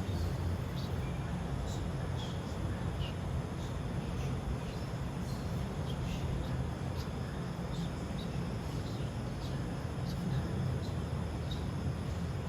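Steady low hum with scattered short, high chirps of night insects such as crickets, during a still pause in prayer.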